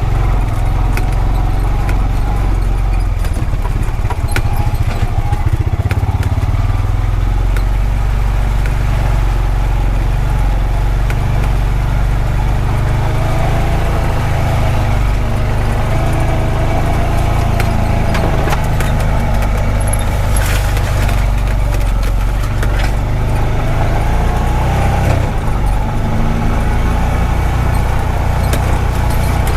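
Honda Pioneer 520 side-by-side's single-cylinder engine running while the machine drives along a dirt track. The engine note rises and falls a little, with scattered clicks and rattles.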